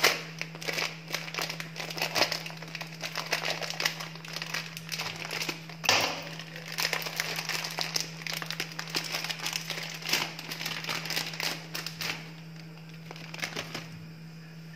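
Plastic packaging crinkling and rustling in irregular handling as a packet of shredded kunafa (kataifi) dough is unwrapped, dying down about twelve seconds in. A steady low hum runs underneath.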